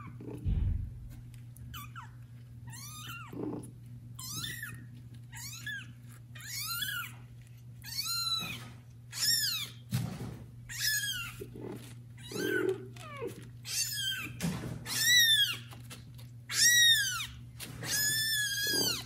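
Very young kitten meowing loudly over and over, high-pitched cries about once a second, each rising and then falling in pitch: a kitten calling for its mother. A soft thump comes about half a second in.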